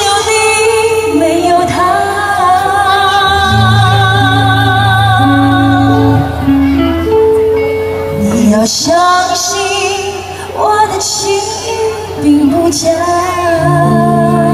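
A woman singing into a microphone with a pop band backing her: long held notes with vibrato over sustained bass notes and cymbals.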